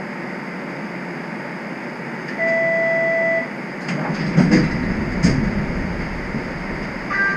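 Inside a stopped TTC streetcar: a steady cabin hum with a one-second electronic beep about two and a half seconds in, then a run of clunks and thuds with a low rumble setting in, and a short high chime near the end.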